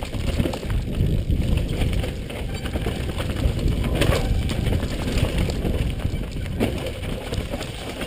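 A downhill mountain bike running fast over a rough, rocky dirt trail, heard from a helmet-mounted camera: a continuous low rumble of tyres and rattling bike, with a sharp knock about four seconds in.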